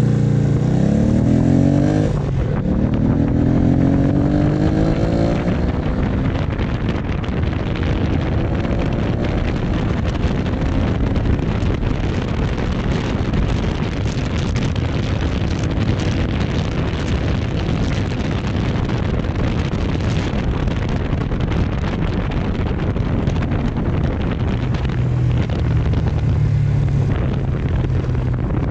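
Yamaha motorcycle engine accelerating, its pitch rising, dropping at a gear change about two seconds in, then rising again. It then cruises under heavy wind noise on the microphone, and a lower, steadier engine note comes through near the end.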